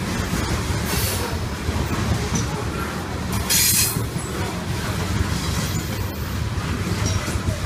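Train rolling past on the rails: a steady low rumble of wheels, with a brief high-pitched burst of noise about three and a half seconds in.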